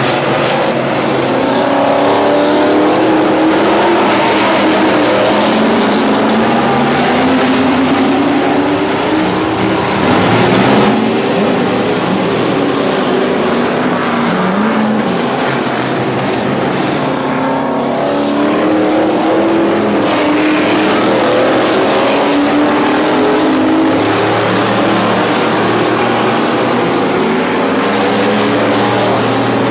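A pack of dirt-track modified race cars running laps, many engines at once. Their overlapping pitches keep sliding up and down as the cars accelerate and back off.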